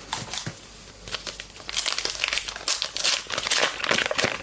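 Trading card pack wrapper being crinkled and torn open: a few light clicks, then a dense crackling that gets louder through the second half.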